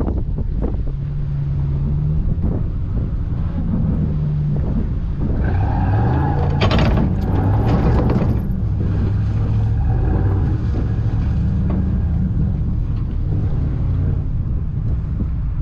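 Pickup truck engine revving under load during a recovery pull on a kinetic rope, wheels spinning. The engine note steps up and is loudest about six to eight seconds in, then eases back to a steady run.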